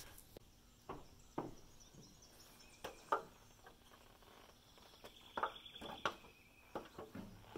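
A few soft, irregular knocks of footsteps on an aluminum stepladder as someone climbs up into a truck box's side door, over faint outdoor ambience.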